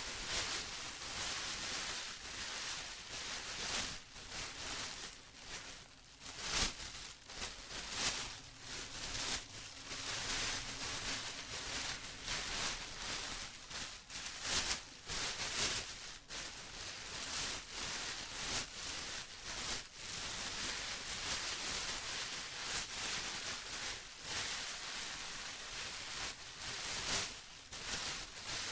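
Plastic sheet or bag being rustled and crinkled by hand, a continuous crackle with frequent sharper crinkles.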